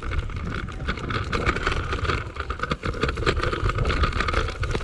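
Small wheels rolling over the concrete of a skate bowl: a steady rumble with many small clicks and knocks, while the camera rides along.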